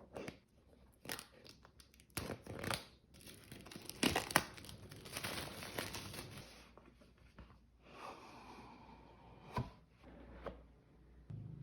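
Packaging being torn open and crinkled by hand, with a few sharp knocks and clicks in between.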